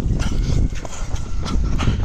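Footsteps of a person running downhill on concrete paving stones, a quick uneven series of sharp steps over a steady low rumble.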